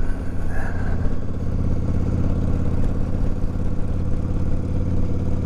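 Yamaha V-Star 1100 Classic's air-cooled V-twin engine running at a steady pitch while the motorcycle is ridden.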